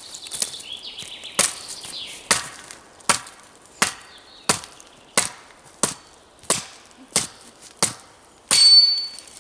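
Wood being chopped with a blade: about a dozen even, sharp blows, a little more than one a second. The last blow, near the end, is the loudest and leaves a brief metallic ring.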